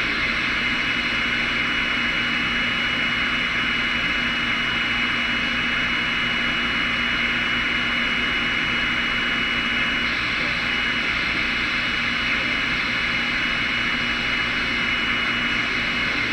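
Steady hiss of static on a two-way radio channel, with a faint high whistle that stops about ten seconds in.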